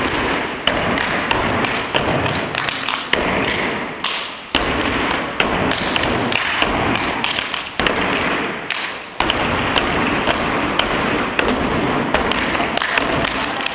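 Step team stepping: many sharp stomps of shoes on the stage together with hand claps and slaps, in quick runs and breaks.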